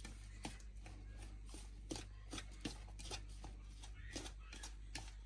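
Fingers mixing dry gram flour, rice flour and spices by hand in a bowl: faint, soft rustling strokes, two or three a second.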